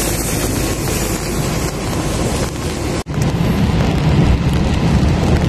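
Wind buffeting the phone's microphone outdoors: a steady rumbling hiss, with a brief dropout about three seconds in.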